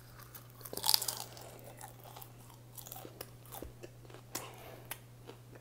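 A mouthful of popcorn being chewed, faint crunches and small clicks that come a little louder about a second in.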